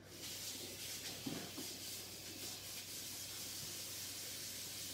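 Water from a pull-down kitchen faucet running into a plastic tub over a seasoned turkey, filling it to soak: a steady hiss that starts abruptly as the tap is turned on.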